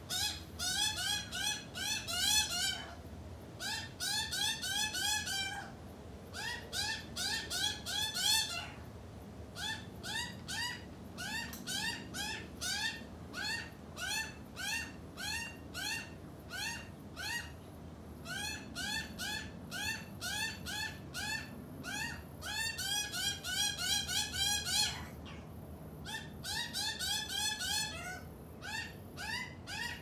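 Juvenile Australian magpie begging: a long series of short rising calls, two to three a second, in runs broken by a few brief pauses.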